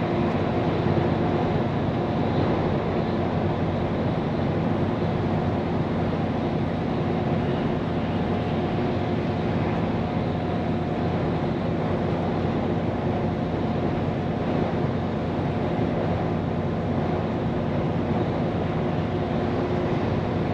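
Scania P410 truck heard from inside the cab while driving: a steady engine drone with a constant whine over tyre and road noise, holding one pitch without revving up or down.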